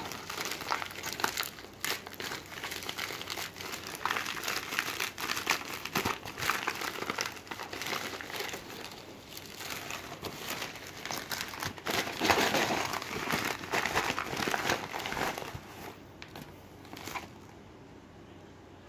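Shipping packaging being handled and unwrapped, crinkling and rustling in quick irregular bursts, then dying down over the last few seconds.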